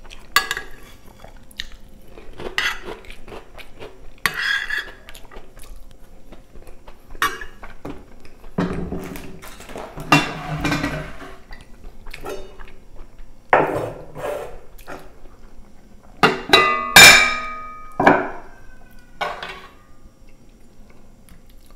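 A metal spoon scraping and clinking against a glass baking dish, then knocking against an aluminium cooking pot. Near the end come a few loud metallic clanks that ring on briefly.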